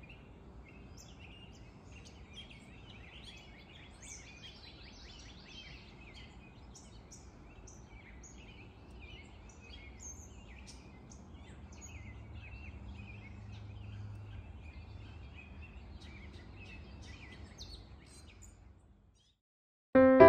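Many wild birds chirping and singing, with short calls and trills overlapping, over a low steady outdoor rumble. The sound cuts off shortly before the end.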